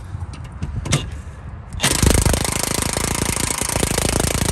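A handheld cordless power tool runs against a seized, rusted suspension nut in one loud burst of about three seconds, starting just under two seconds in, with a fast rattle.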